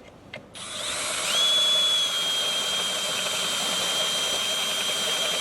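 Power drill spinning up about half a second in, then running steadily at high speed with a high whine as its bit cuts a hole through metal, opening it out to about 3/4 inch.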